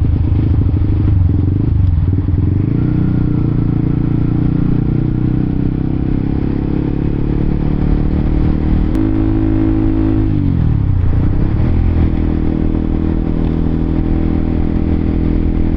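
Honda CBR K45R sport motorcycle's engine running under way at steady revs. About nine seconds in, the pitch drops as the rider eases off. It sinks lower for a couple of seconds and then rises again as the bike pulls away.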